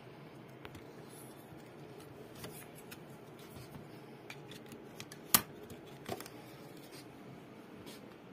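Small sharp plastic clicks and taps as batteries are fitted into a satellite receiver's remote control and it is handled. There are about five separate clicks, the loudest a little past five seconds in.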